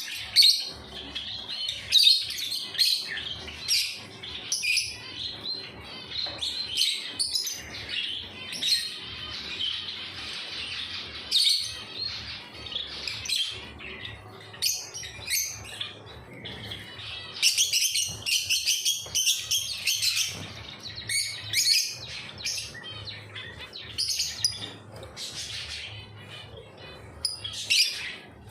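Birds chirping: many short, high calls in quick succession, with a denser stretch of chatter about seventeen to twenty seconds in.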